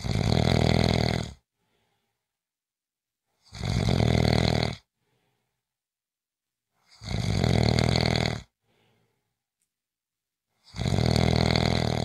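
A person snoring: four loud snores about three and a half seconds apart, each lasting over a second, with faint breathing just after each one.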